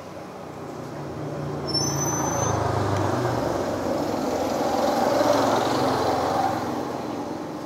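Road vehicles passing close by. Engine and tyre noise swells to a peak about five seconds in, then fades, with a low engine hum in the first few seconds.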